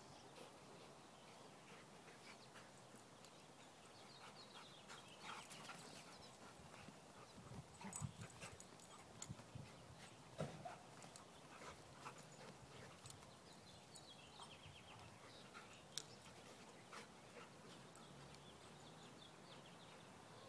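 Two dogs play-fighting, heard faintly: scuffling and a few short dog growls and whines, with brief sharper sounds about eight, ten and sixteen seconds in.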